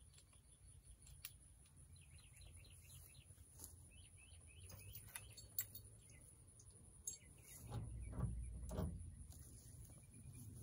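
Faint bird chirping, a few quick trilled phrases, with a couple of low thuds and rustling about eight seconds in.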